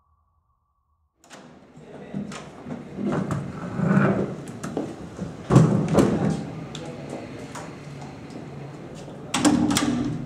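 A wooden door being handled: irregular knocks, clicks and thuds with some rustling, starting about a second in after silence.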